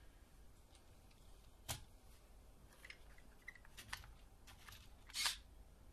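Scattered plastic clicks and knocks from a Lego Technic model buggy on a wooden table, with a sharper click about two seconds in and a short, louder scrape about five seconds in.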